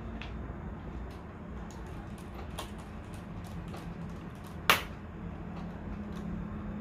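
Scattered light clicks and taps of a notebook's small screws and plastic casing parts being handled during reassembly, with one sharp, louder click about two-thirds of the way through. A low steady hum runs underneath.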